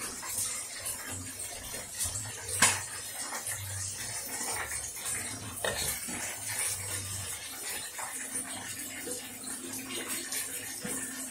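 Fish frying in hot oil, a steady crackling sizzle, with a sharp knock about two and a half seconds in and a smaller one near six seconds as a metal bowl is handled.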